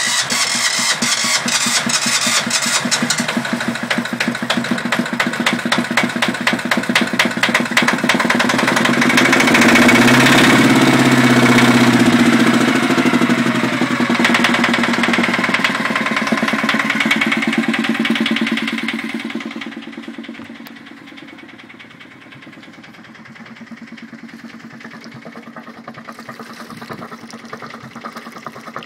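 Yanmar YSE12 single-cylinder marine diesel running at a steady idle shortly after a cold start, with a loud, even firing beat. It swells briefly about ten seconds in, then becomes much quieter about two-thirds of the way through.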